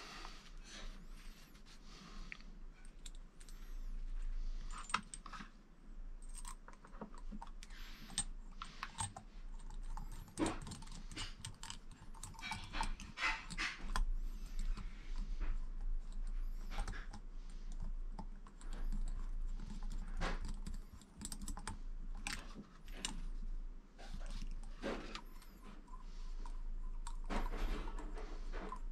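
Irregular light clicks, taps and short rattles of small screws, tools and plastic parts being handled while fitting parts to an RC car chassis.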